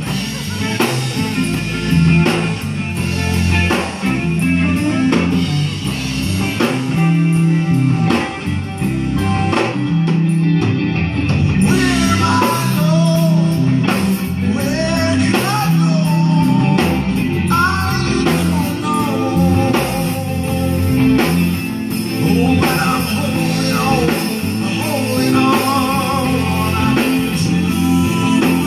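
Live rock band of electric guitars and drum kit playing a song; a man starts singing about twelve seconds in.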